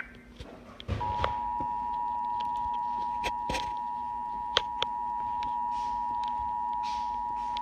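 Emergency Alert System two-tone attention signal, starting about a second in as a steady dual tone near 1 kHz that holds unchanged, marking a Required Monthly Test. A few sharp clicks of static crackle over it.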